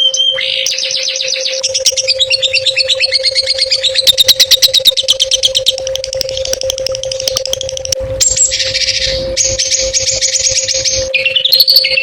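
Songbird singing a fast, varied song: rapid trills and chattering notes that change every second or two, with a dense buzzy phrase about two thirds of the way through. A steady low hum runs underneath.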